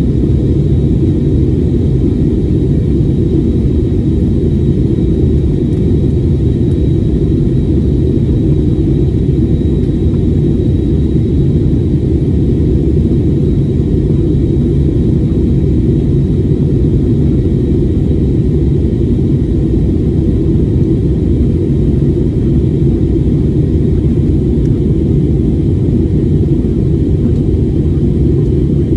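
Airliner jet engines and airflow heard from inside the passenger cabin in flight: a steady, loud low rumble with a faint high whine above it.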